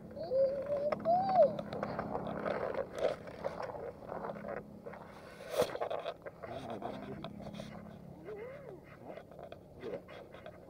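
A small digging pick scratching and tapping at a plaster toy dinosaur egg and at loose gravel: a run of short scrapes and clicks. There are a few short wordless pitched vocal sounds, the loudest near the start.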